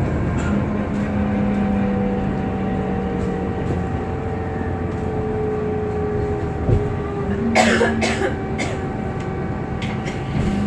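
Alexander Dennis Enviro 400MMC double-decker bus running, with a strange whirring noise: thin steady whining tones over the road and engine noise, one of them slowly falling in pitch. Brief rattles about two-thirds of the way through.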